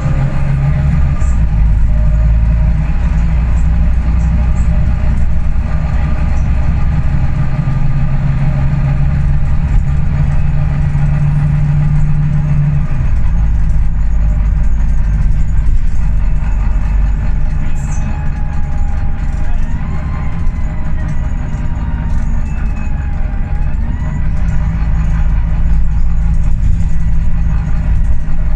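Volvo B9TL double-decker bus's six-cylinder diesel engine and drivetrain heard from the upper deck while under way: a steady, loud low drone that shifts in pitch and strength a couple of times as the bus changes speed.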